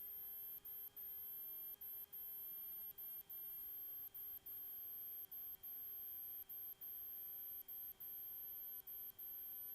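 Faint, steady whine with a few overtones in the cockpit audio of a Sting light-sport airplane on approach, with brief dropouts at intervals.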